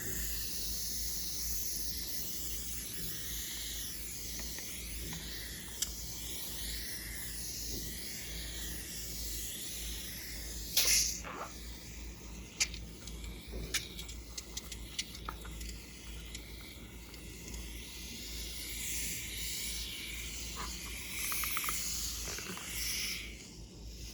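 Fluffy slime being worked by hand: a steady, fizzy, crackling hiss with scattered sharp little pops and clicks, loudest about eleven seconds in.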